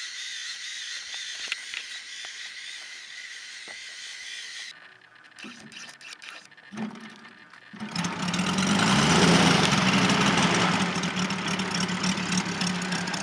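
The Moki 150cc radial glow engine of a 2.6 m RC Yak-54 model catches about eight seconds in and runs at a steady low idle, loudest just after it fires and then settling. Before it starts there is only a faint steady hiss with a few clicks.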